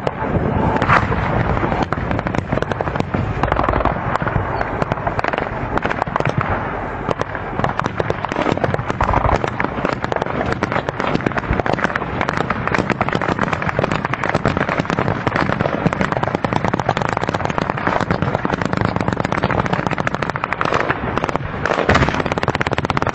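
Sustained gunfire in a firefight: many rapid shots overlapping into a dense, continuous crackle, loud throughout.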